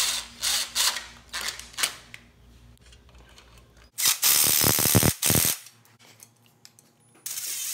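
Ridgid cordless impact driver spinning a socket on the radiator mounting bolts: four or five short trigger pulls in the first two seconds, then a longer run of about a second and a half, and another run starting near the end.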